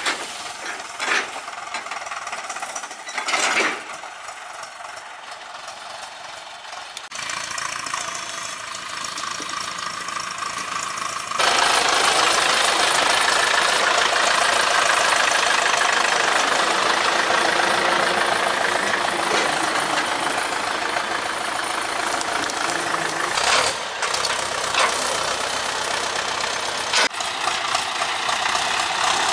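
Ursus C-360 tractor's four-cylinder diesel engine running steadily, with the clatter of an old diesel; quieter at first, then markedly louder from about eleven seconds in.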